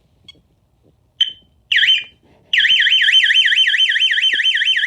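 SimpliSafe alarm siren set off by a panic-button test: a short beep, a brief warble, then a loud continuous siren that warbles rapidly up and down, several sweeps a second.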